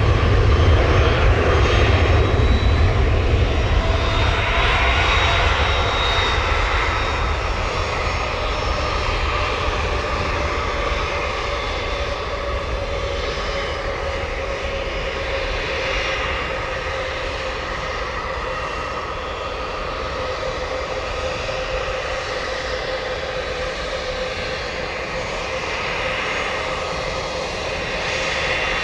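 Airbus A321-211 twin CFM56 jet engines at take-off power as the airliner rolls down the runway and climbs away. A low rumble with a steady whine on top, loudest at the start and fading steadily as the aircraft moves off.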